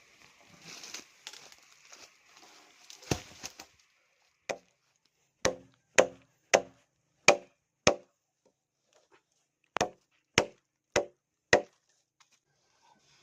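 Chopping into wood: about eleven sharp, separate strikes, in two runs with a short pause between them.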